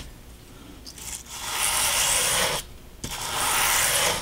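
A wire brush scraped along a strip of painted thick watercolor paper in two long strokes, roughing up its surface.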